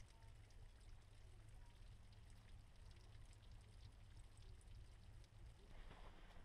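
Near silence: a faint, uneven low rumble with a thin hiss, and a faint gritty noise that begins near the end.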